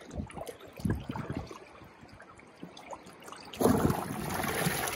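Shallow seawater lapping and trickling around a barnacle-covered rock, with a louder wash of water surging over it about three and a half seconds in.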